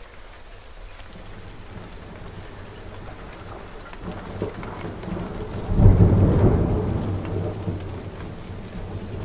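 Logo-intro sound effect: a steady crackling hiss that slowly builds, then a deep rumbling boom swells about six seconds in and fades away, much like rain with a thunderclap.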